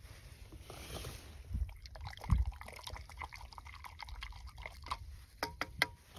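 Liquid being poured and sloshed in a cup, with scattered light clicks and a few short ringing clinks near the end, typical of camp coffee being made.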